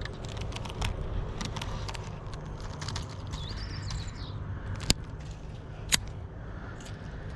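Outdoor background with a steady low rumble and scattered small clicks and handling noises. A short bird call comes a little past the middle, and two sharp clicks follow about a second apart.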